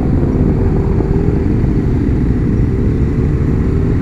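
Motorcycle engine running at a steady cruise, heard from on the bike with a low rumble of engine, wind and road noise; the engine note wavers only slightly.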